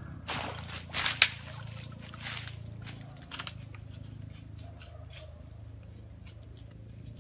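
Footsteps and rustling in dry leaf litter on the forest floor: a handful of crunches in the first three seconds or so, the loudest a sharp click about a second in, then quieter rustling over a low steady hum.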